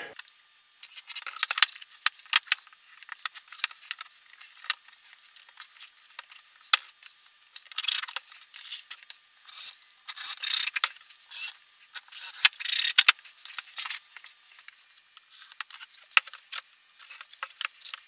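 Clicks, rattles and scrapes of screws and pine boards being handled, with a few short bursts of a Ridgid cordless drill driving Spax construction screws into the wood.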